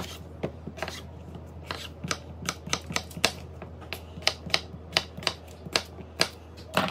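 Kitchen knife chopping a potato into cubes on a wooden cutting board: a run of short, sharp knocks of the blade on the board, irregular, about three a second.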